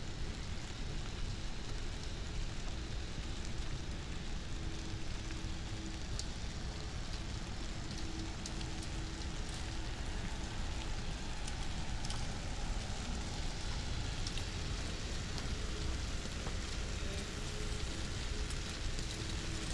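Steady rain falling on wet city pavement: an even hiss with scattered drip ticks.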